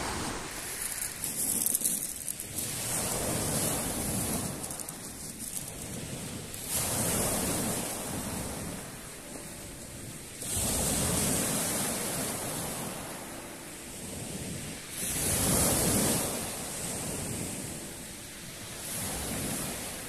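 Small sea waves breaking and washing up a pebble beach, each surge swelling and falling back about every four seconds.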